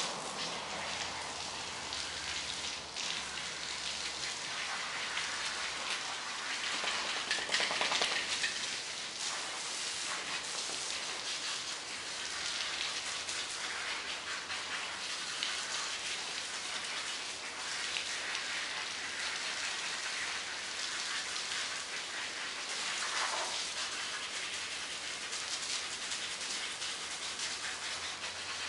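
Garden hose spraying water onto a dog's coat and the wet pavement: a steady hiss, briefly louder about seven to eight seconds in.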